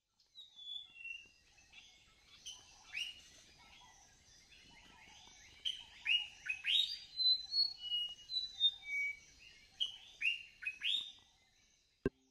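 Songbirds chirping, many short high calls and sweeping notes overlapping. The calls are sparse at first, grow busier and louder about halfway through, then fade out near the end.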